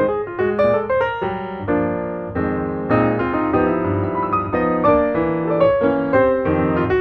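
Background piano music: quick runs of notes that slow to held chords in the middle, then pick up again.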